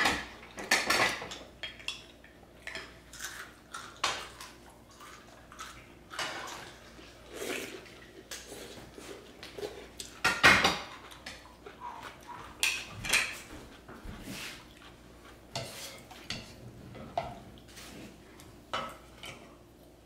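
Dishes and cutlery clinking and knocking at irregular intervals as food is eaten, with the loudest clink about ten seconds in.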